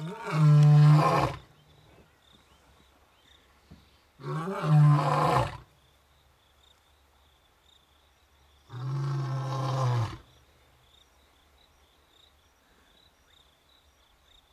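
Male lion roaring: three long, loud roars about four seconds apart, each a deep pitched call that drops off at the end. It is territorial calling, proclaiming the lions' hold on the area. Faint steady insect chirping lies underneath.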